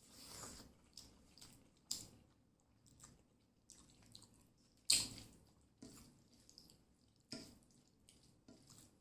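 Wet, squishy food sounds of curry and rice being handled and eaten, close up: a string of short sharp smacks and squelches, the loudest about halfway through.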